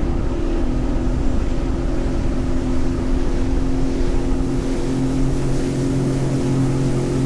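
A 2024 Sea-Doo Explorer Pro 230 personal watercraft running steadily under way, its Rotax three-cylinder engine note over the rush of water. The engine note shifts slightly right at the start and again about two-thirds of the way through.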